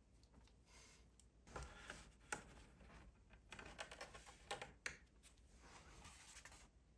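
Quiet sounds of a poster and its backing board being fitted into a picture frame: soft paper rustling and sliding, broken by several sharp light taps and clicks as the board is laid in and pressed down.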